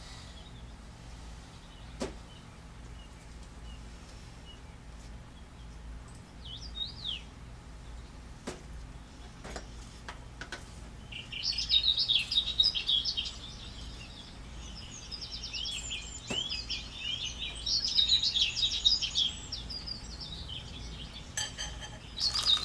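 Small songbirds chirping and trilling in quick, busy phrases, starting about half-way through, with a few faint clicks before them.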